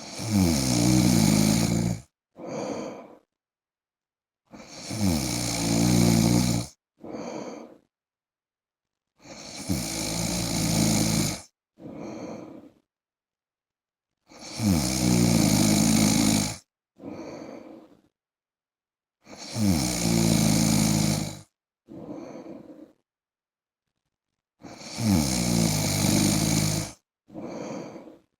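A man snoring in his sleep: six long snores of about two seconds each, roughly five seconds apart, each followed by a shorter, fainter breath.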